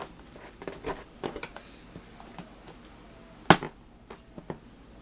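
Scattered clicks, knocks and faint scrapes of a cardboard shipping box being worked at with a knife, with one sharp, loud crack about three and a half seconds in.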